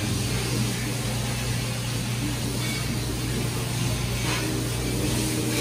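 Steady low drone of commercial kitchen machinery, with a short soft noise about four seconds in.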